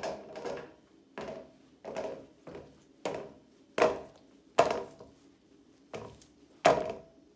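Whole chili peppers dropped one at a time into a plastic colander bowl, each landing with a short hollow knock. There are about ten knocks, spaced irregularly, most well under a second apart.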